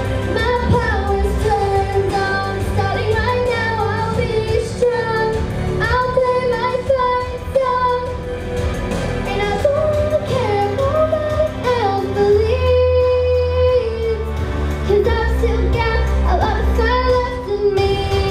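A young girl singing a song through a handheld microphone over an instrumental backing track, her voice holding and bending notes of the melody.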